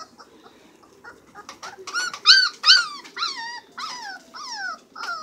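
Puppies in a litter yelping and whining during rough play: a run of about seven high cries, loudest a couple of seconds in, the later ones sliding down in pitch.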